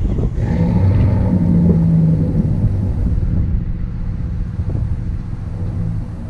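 Wind buffeting the microphone, with a steady engine hum beneath it that is strongest in the first couple of seconds.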